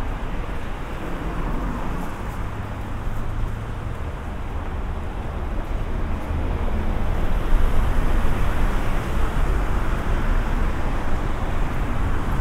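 Street traffic rumble, a steady noisy hum that swells louder about six seconds in, as of a vehicle drawing near.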